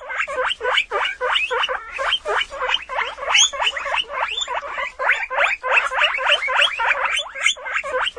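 Guinea pig squeaking: a fast, unbroken run of short, high squeals, about five a second.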